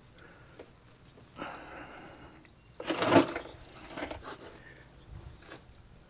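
Intermittent scraping, clicking and knocking of brake hardware and tools being worked by hand, with a brief louder scrape or clatter about three seconds in.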